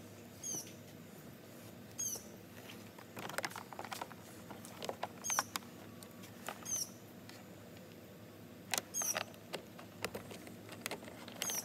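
Plastic clicks and knocks of a kayak fish finder being handled on its mount, with its cable connector unplugged and plugged back in. A bird gives a short, high, falling chirp every second or two.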